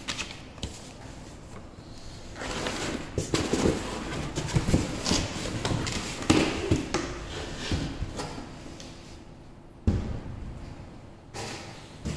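Handling noise while unboxing a belt sander: paper and cardboard rustling with scattered knocks, then a thud about ten seconds in and a louder knock right at the end.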